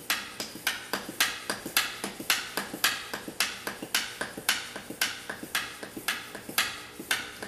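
Hand-operated oil-sampling vacuum pump being pumped, giving sharp, regular clicking strokes about three a second as it draws engine oil up a tube from the diesel's oil pan into the sample bottle.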